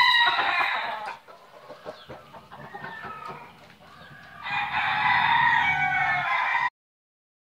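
Roosters crowing twice: one crow ending about a second in, and a second crow starting about four and a half seconds in that cuts off suddenly near the end. Softer clucking comes between the two crows.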